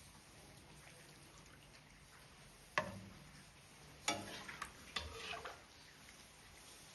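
Three sharp clinks of a utensil against a dish or pot, about a second apart, each with a short clattering tail.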